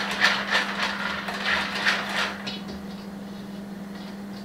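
Whisk scraping through a chocolate ganache mixture in a stainless steel mixing bowl, in quick strokes about three a second that stop a little after two seconds in. A steady low hum runs underneath.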